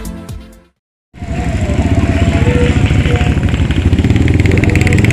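Intro music fading out, a moment of silence, then a motorcycle engine running steadily and loudly close by, with a fast, even pulse.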